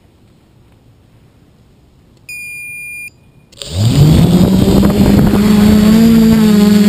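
A single electronic beep lasting under a second, then the quadcopter's electric motors and propellers spin up, their hum rising in pitch and settling into a loud, steady drone as the quad lifts off.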